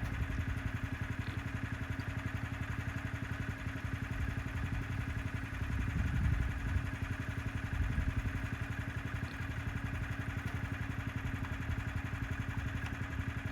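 An engine idling steadily, with an even, rapid low pulse and a constant hum.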